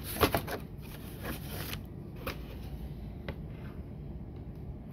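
Handling noise as a plastic fluid tank is taken out of its cardboard box and turned over in the hands: rustling of packaging in the first couple of seconds, then a few single light clicks and knocks about a second apart.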